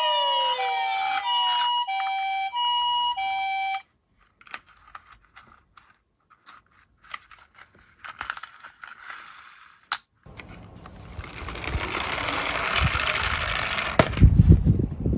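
A two-tone ambulance siren alternating between a high and a low note, which cuts off suddenly about four seconds in. Scattered small clicks and taps follow, then a sharp click. A rattling rolling noise builds from there, rising to a low rumble near the end, as toy minicars run down a slope.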